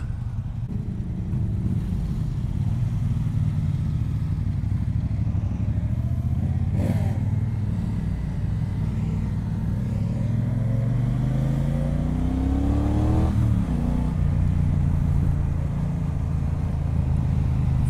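The 2018 Triumph Bonneville Speedmaster's 1200 cc parallel-twin engine running as the bike pulls away. Its note rises steadily for several seconds, drops with an upshift about thirteen seconds in, and then runs on at a steady pace.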